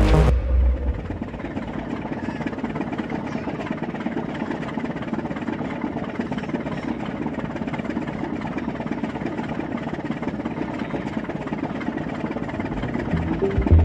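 Music stops just after the start, leaving an engine running steadily at an even level.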